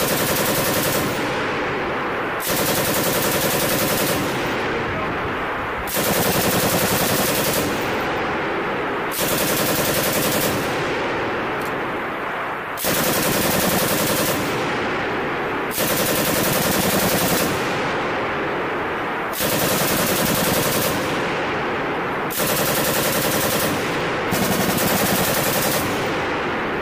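M240B 7.62×51mm belt-fed machine gun firing a long string of bursts, each a second or two of rapid fire, with short breaks between them.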